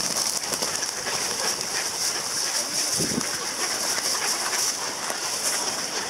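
Mallards and feral pigeons crowding together to feed on scattered grain: a steady, dense pattering of pecking and fluttering wings.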